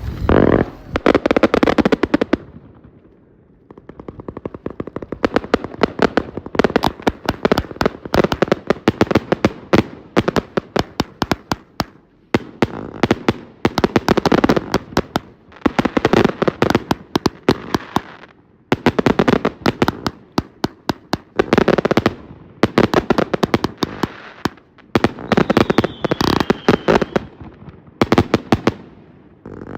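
A 49-shot Intravenous consumer firework cake firing: volleys of loud shots and rapid crackling bursts in quick succession, with short lulls between volleys.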